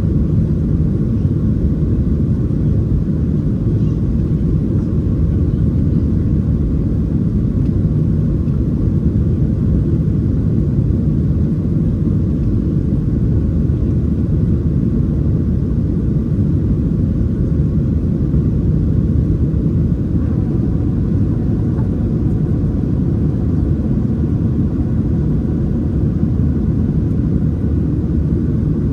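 Boeing 737-700 cabin noise heard from a window seat: the steady, deep rumble of the CFM56-7B jet engines and rushing air. A faint steady hum joins about two-thirds of the way through.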